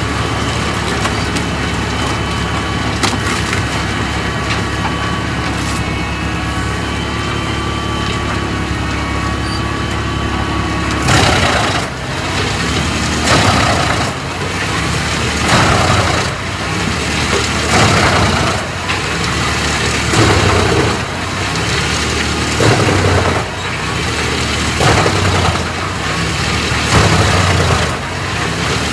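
Large wood chipper running with a steady engine note, then from about eleven seconds in chewing through wood in repeated loud crunching surges about every two seconds.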